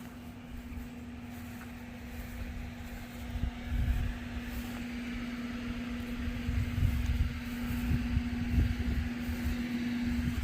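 Steady machine hum holding one constant pitch, with uneven low rumbling underneath that gets stronger about four seconds in.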